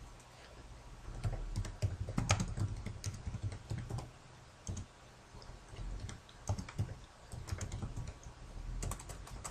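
Typing on a computer keyboard: quick runs of keystrokes with a short lull about halfway through.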